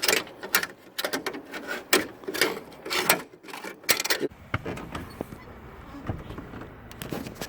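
A wire hook scraping and clicking against a truck cab door's glass, rubber seal and inside trim as it is worked toward the lock button. The clicks and rustles are irregular for about four seconds, then fainter and sparser.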